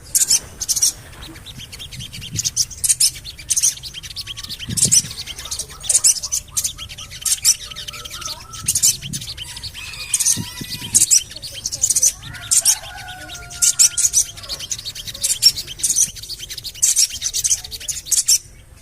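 Sogon bird calling a rapid series of short, very high 'cuit' chirps, about two a second, with fainter warbling notes between them. This is the call played as a lure to get a caged sogon to start singing.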